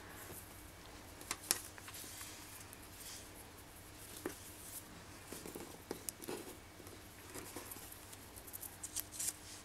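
Faint rustling and light clicks of fingers handling and knotting macramé cord, with a few sharper ticks about a second and a half in and near the end.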